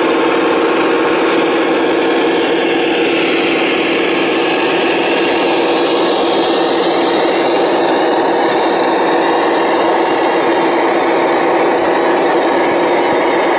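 Radio-controlled trucks driving over gravel: the electric drive motors and gearboxes whine steadily, rising and falling in pitch as the speed changes, over the crunch of tyres on the gravel.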